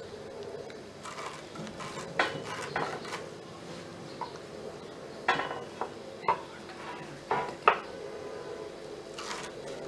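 A steamed alu vadi roll being sliced on a curved fixed blade, with a few scattered clinks and soft knocks as the blade cuts and slices drop onto a steel plate.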